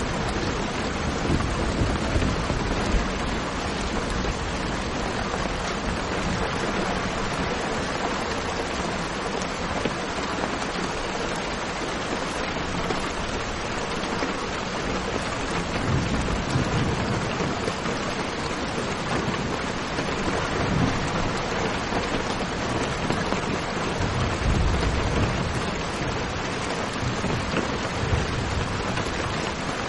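Steady rain, a dense even hiss, with low rumbles of thunder swelling and fading several times.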